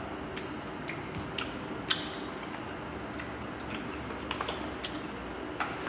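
A few sparse, light clicks and taps from a clear plastic food jar and its lid being handled, against a quiet room.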